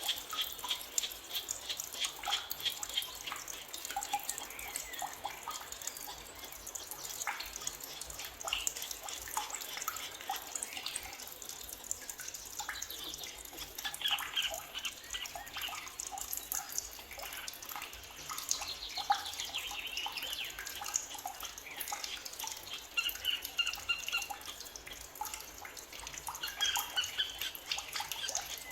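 A chorus of forest birds chirping and singing, with many short calls and whistled notes overlapping throughout.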